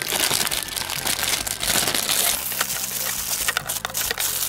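Clear plastic wrapping crinkling and crackling as it is handled and pulled off a pack of plastic capsule-toy capsules, a dense run of crackles and small clicks throughout.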